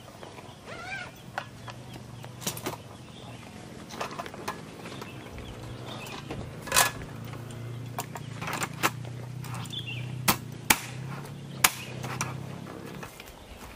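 Sharp clicks and knocks of a small folding camp table being unfolded, its folding legs snapping open and into place against a plastic storage box. A steady low hum runs underneath and stops near the end.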